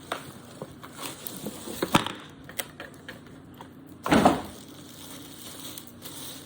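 Packaging being handled during an unboxing: scattered clicks and crinkles, then a louder rustling thump about four seconds in.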